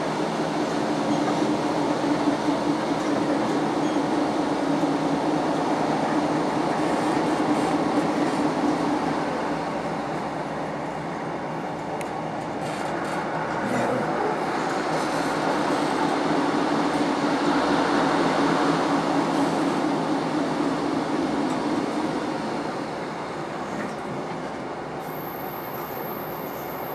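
Train running at speed, heard from inside a passenger carriage: a steady rush of wheel and track noise under a low drone that fades out about ten seconds in and comes back a few seconds later. A thin high whine starts near the end.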